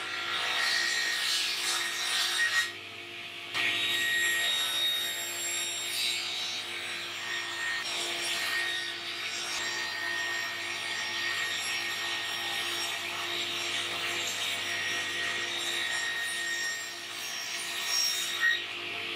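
Sliding table saw running and ripping a hardwood strip: a steady motor hum under the hiss and whine of the blade cutting. The cut eases briefly about three seconds in, then carries on steadily.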